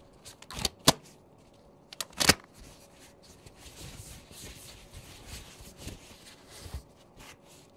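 Rubber bands snapping as gloved hands pull them off a wrapped bundle: a handful of sharp snaps in the first two and a half seconds. Then the wrapping rustles and crinkles as it is peeled open, with a couple more small clicks near the end.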